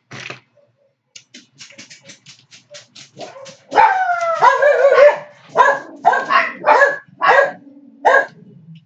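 A dog barking loudly: a long whining yelp that falls in pitch about four seconds in, followed by five short barks. Before it comes a run of faint quick clicks.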